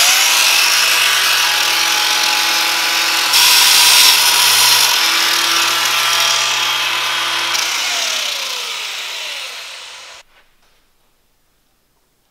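Handheld power grinder running steadily at full speed, its motor hum under a dense grinding hiss, louder for a stretch about three seconds in. About seven and a half seconds in its pitch starts to fall as it winds down, stopping about ten seconds in.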